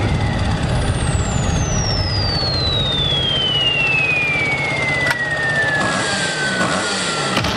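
Engine sound effect running steadily, with a long whistle gliding down from very high to mid pitch over about seven seconds, like a falling-bomb whistle.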